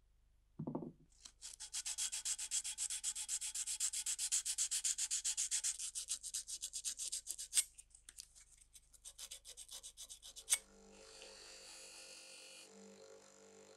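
A brief thud, then abrasive paper rubbed rapidly back and forth over the brass crown of an oil-lantern burner, many quick rasping strokes that thin out after about six seconds. Near the end a bench buffing machine runs with a steady hum as the brass burner is pressed against the buffing wheel twice, each time with a hissing polishing noise.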